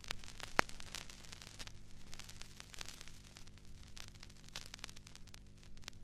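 Static crackle with scattered pops and clicks over a faint hiss and a low steady hum, one sharper pop about half a second in.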